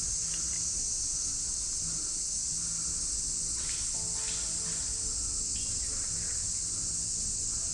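A steady, high-pitched chorus of insects that runs on unbroken.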